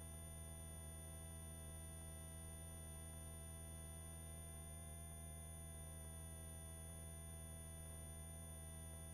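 Faint, steady drone of a helicopter in flight: a low hum with a stack of evenly spaced steady tones above it, unchanging throughout.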